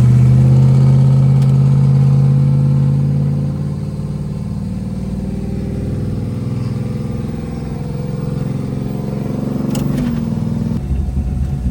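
Drag car engine under power on a test run: loud for the first few seconds, then dropping in level and running on steadily, with a brief rise in pitch near the end.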